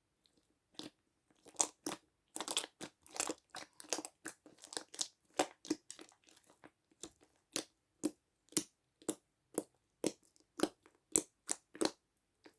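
Slime being kneaded and squished by hand with cream worked into it, giving a run of sharp sticky pops and clicks, crowded at first and then settling to about two a second.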